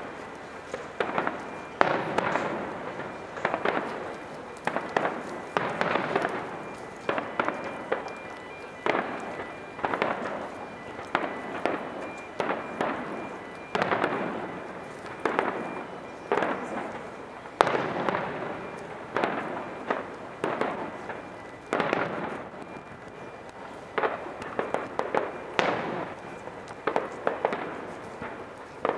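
Aerial firework shells bursting in an irregular run of bangs with crackling, sometimes several in quick succession, some much louder than others.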